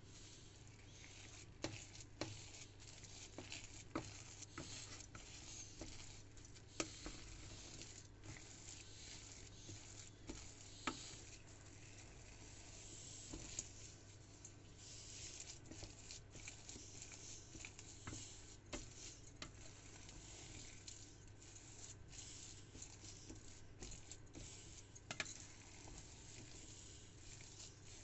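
A wooden spatula stirring and mashing a thick cooked-rice mixture in a stainless steel pot: faint squishing and scraping with irregular light knocks of the spatula against the pot.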